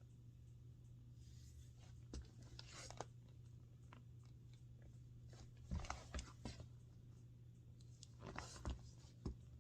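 Near silence over a steady low hum, with a few faint scattered rustles and light knocks: handling noise.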